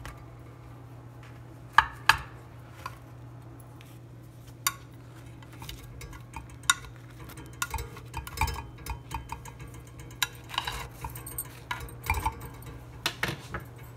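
A metal spatula scraping and clinking against a glass baking dish as baked buns are pried loose and lifted out: irregular taps and clicks, busier in the second half, over a steady low hum.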